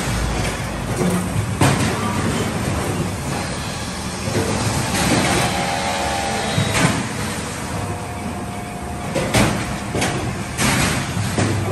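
Log debarking machines running: a steady, dense mechanical clatter and grind of bark being stripped from the logs. Sharp knocks come now and then as logs drop and roll on the steel conveyor frames, and there is a brief squeal about halfway.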